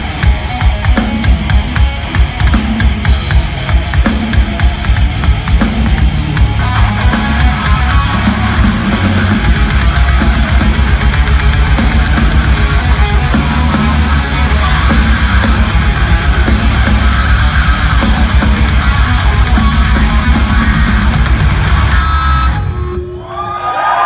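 A live hard rock band plays loud distorted electric guitars over bass and a driving drum kit, with a steady pounding beat that gets denser after the first several seconds. The band stops about a second and a half before the end, and the crowd whoops.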